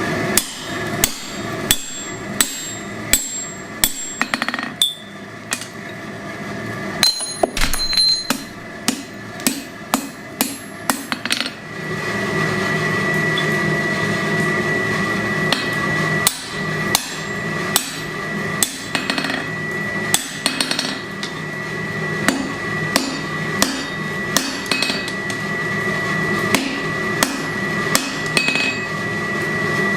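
Hand hammer striking hot steel on an anvil, a steady run of blows about one to two a second, as tongs are forged. About twelve seconds in, a steady hum joins under the strikes.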